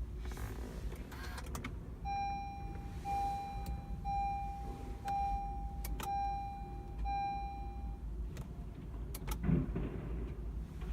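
Honda Accord's warning chime beeping six times, about once a second, with several single sharp clicks before, during and after it and no engine cranking. This click-without-crank is the sign of a failing starter.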